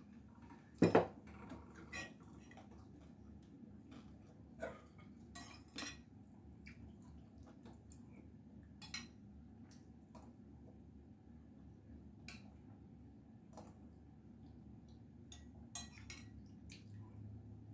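Eating utensils clicking and clinking against a ceramic bowl of noodle soup as it is eaten, in scattered single clicks. The loudest sound is a knock about a second in.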